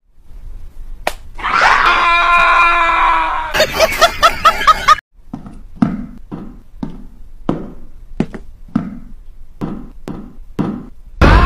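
A dog screaming for about two seconds, then a quick run of sharp yelps. After a brief gap comes a steady series of soft knocks, about two a second.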